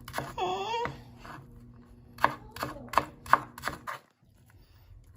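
Kitchen knife dicing an onion on a cutting board: a run of six quick chops, about three a second, in the middle. Near the start a dog gives a short whine that bends up in pitch.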